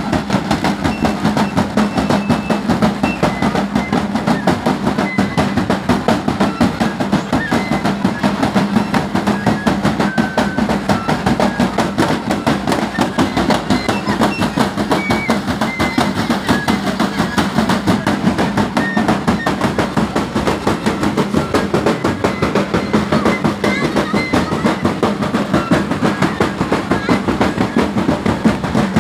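Drums beaten in a fast, steady rhythm by a walking procession, with crowd voices underneath.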